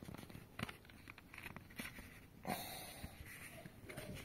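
Faint clicks, knocks and scrapes of a Bosch Serie 8 tumble dryer's plastic lint filter being pulled out of its slot in the door opening, with louder knocks about half a second and two and a half seconds in.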